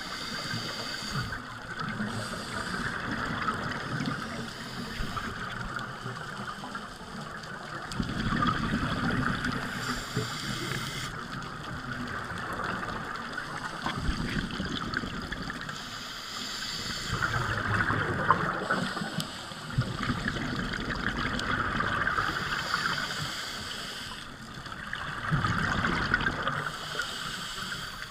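Scuba divers breathing through their regulators underwater, heard muffled through the camera's waterproof housing: exhaled bubbles gurgle in swells every few seconds over a steady rushing noise.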